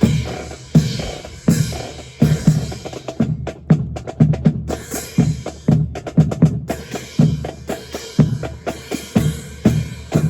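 Marching percussion section playing a drum cadence: repeated bass drum and snare drum strikes in a steady rhythm.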